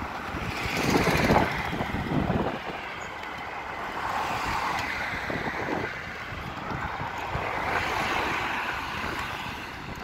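Road traffic: vehicles passing on the road, their noise swelling and fading three times, loudest about a second in.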